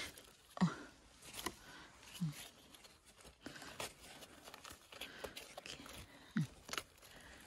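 Faint rustling and tearing as clusters of oyster mushrooms are pulled and broken off rotting wood by a gloved hand, with scattered small clicks and scrapes.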